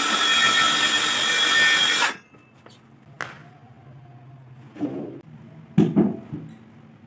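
Handheld circular saw running as it cuts a shallow groove into plywood, stopping abruptly about two seconds in. Then a click and a couple of soft wooden knocks as the boards are handled.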